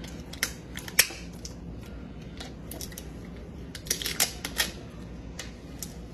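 Duct tape being torn and pressed down to fix a plastic stick onto a cardboard paddle: scattered sharp clicks and crackles, the sharpest about a second in and a small cluster about four seconds in.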